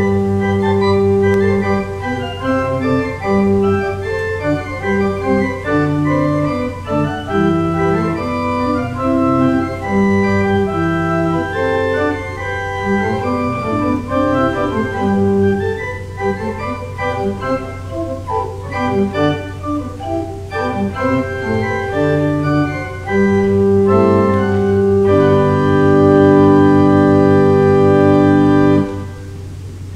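Church organ playing a slow piece in several moving parts, closing near the end on a louder held chord that stops abruptly.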